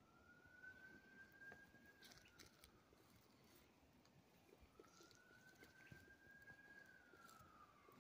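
Faint siren wailing, one slow rise and fall every four to five seconds, with a few soft ticks.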